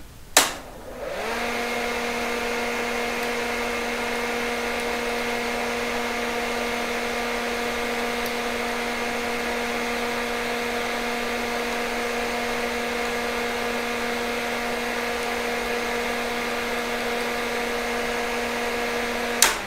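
DEC PDP-11/34A minicomputer switched on at its front-panel key switch with a click, its cooling fans spinning up within about a second to a steady whirring hum. Near the end another click switches it off and the hum starts to wind down.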